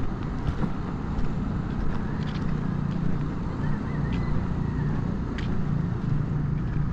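Outdoor ambience dominated by a steady low engine-like rumble of road traffic, which grows a little stronger about two seconds in, with a few faint light clicks of footsteps on a concrete path.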